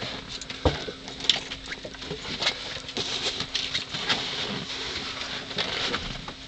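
Scattered light knocks, clicks and rustling of handling aboard a small boat, over a steady low hum.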